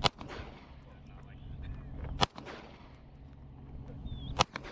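Three single gunshots about two seconds apart, each a sharp crack followed by a short echo.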